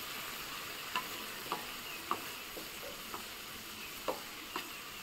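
Curry of potato, brinjal and tomato sizzling steadily in oil in a black wok, with a metal spatula stirring and scraping in fried onions and green chillies, clicking against the pan and plate about seven times.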